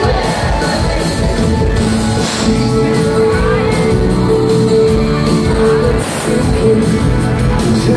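Live rock band playing an instrumental stretch with drums and electric guitar, over a long held note.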